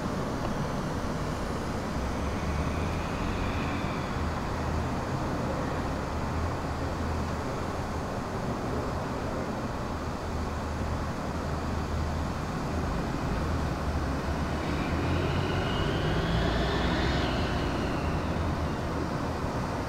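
A steady low rumble with a noisy hiss over it. About 15 seconds in a higher tone swells, rises and falls away again before 18 seconds.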